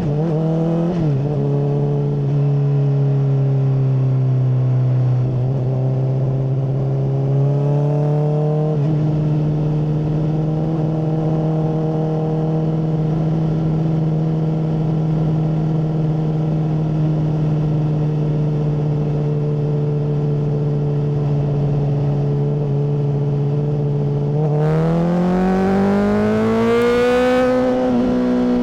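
Honda CBR600RR inline-four engine through a MIVV full exhaust, running at a steady engine speed for most of the stretch, then revving up in a smooth rising pitch near the end.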